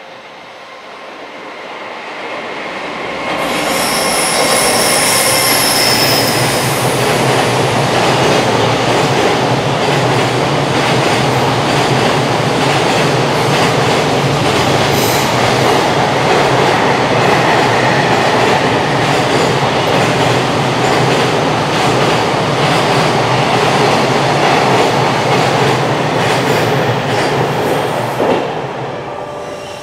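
Freight train of container wagons passing through a station at speed. The sound builds over about three seconds as it arrives, then holds a loud, steady rumble of wheels with rapid clacking over the rail joints, with a high whine in the first few seconds of the passage. It fades away near the end.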